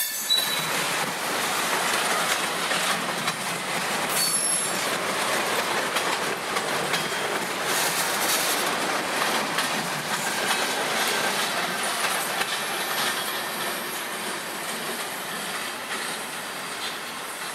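Freight cars rolling past close by: a steady rumble and rattle of steel wheels over the rail joints, with brief high-pitched wheel squeals now and then. It eases off slightly near the end as the last car, a tank car, goes by.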